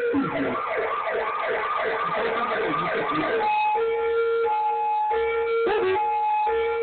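Recorded emergency-vehicle siren played back: a fast yelping wail sweeping up and down about twice a second, switching about halfway through to a two-tone hi-lo alternation. A short rising sliding note cuts in about two-thirds of the way through.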